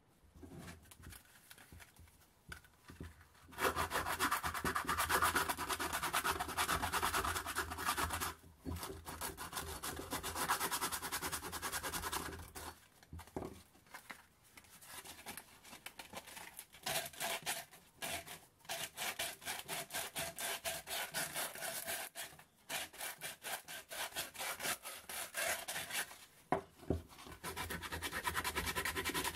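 Abrasive paper rubbing on a metal part during hand sanding: back-and-forth scraping that starts about four seconds in and is broken by short pauses, with quicker separate strokes through the middle.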